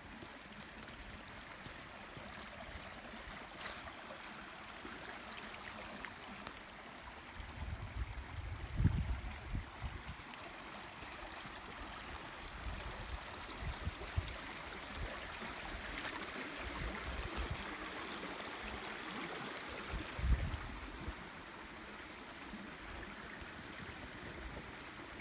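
Stream water running steadily, a continuous even rush, with a few low rumbles, the strongest about nine seconds in and again near twenty seconds.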